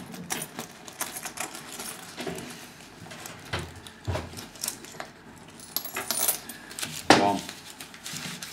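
Loose coins clinking and rattling as cash is rummaged through and counted by hand: a run of small irregular clicks, with one louder clatter about seven seconds in.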